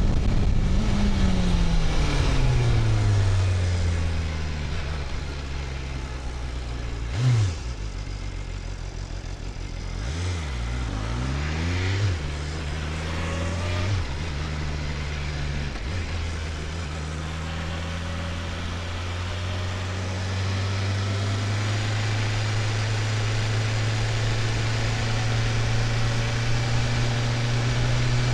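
BMW S1000RR's inline-four engine on the move. Revs fall over the first few seconds, there is a sharp blip about seven seconds in, and revs rise and drop several times between about ten and sixteen seconds. After that it holds a steady note, climbing slowly near the end.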